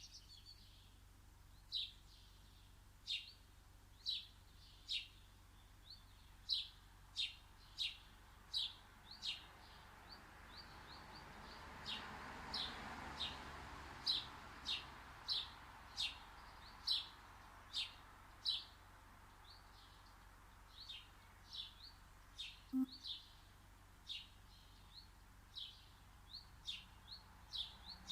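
A garden bird chirping over and over: short, sharp, high chirps, roughly one a second, with a faint background rush that swells and fades about halfway through.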